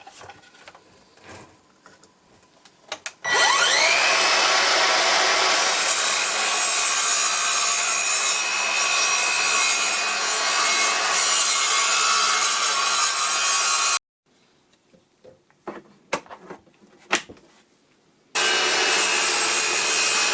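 Cordless 18V mitre saw: after a few light clicks, the motor spins up with a rising whine and the blade cuts through wood for about ten seconds. The sound stops abruptly, a few light knocks follow, and the saw is running again near the end.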